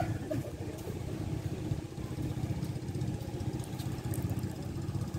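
A small engine running steadily at low speed, a continuous low hum with a fast even pulse.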